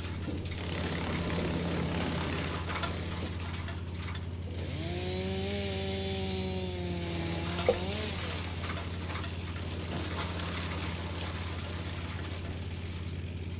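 Wood chipper running with a steady low engine hum and a busy mechanical rattle. A pitched whine comes in for about three seconds in the middle, and a single sharp knock sounds near its end.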